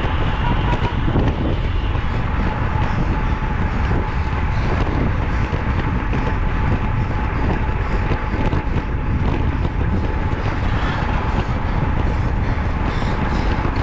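Heavy wind rumble on the microphone over a motor vehicle running steadily, with one faint steady high tone held throughout.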